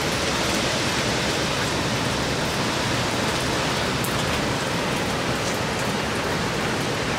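Hurricane-force wind and rain making a steady rushing noise, with the wind thrashing the trees.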